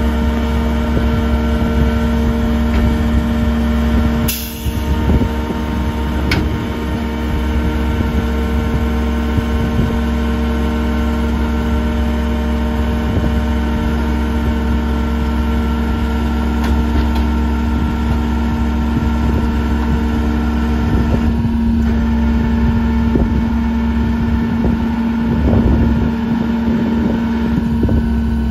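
Leach Sanicruiser rear-loader garbage truck running with its hydraulic lifter raising and tipping a steel dumpster into the hopper: a steady engine drone with several held tones. A sharp knock comes about four seconds in, and the tones shift about three quarters of the way through.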